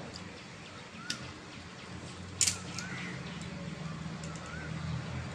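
Sharp, crisp cracks of hollow fried puri shells being broken open by fingers, the loudest about two and a half seconds in, over a low steady hum. A bird chirps a short rising-and-falling note every couple of seconds.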